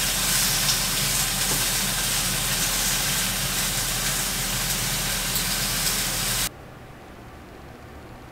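Food sizzling in a frying pan on a gas hob: a loud, even hiss with a low hum underneath, cutting off abruptly about six and a half seconds in.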